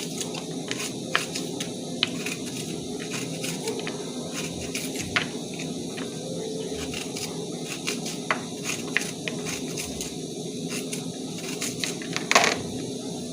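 Irregular sharp knife clicks as onions are cut, over a steady low hiss and crackle from the stew cooking.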